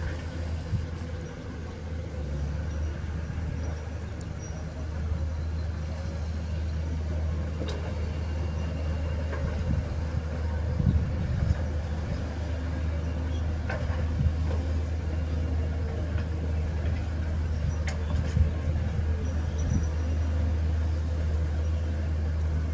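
Diesel engines of working hydraulic excavators, a Caterpillar and a Hyundai, running with a steady low drone, broken by a few sharp knocks.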